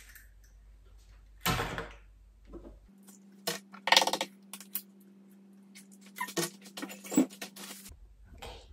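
Eggs being cracked against a small bowl: several sharp taps and clinks of shell on the bowl, the loudest about four seconds in, then a run of lighter clicks near the end.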